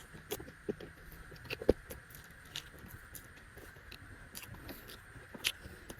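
Close-miked eating of buffalo meat: irregular wet mouth clicks and smacks from chewing, the sharpest about a second and a half in.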